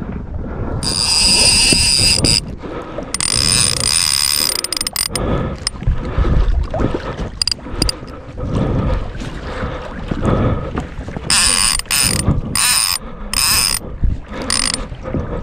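Fishing reel's drag buzzing in several bursts as line is pulled off, typical of a big king salmon running, over wind and water noise.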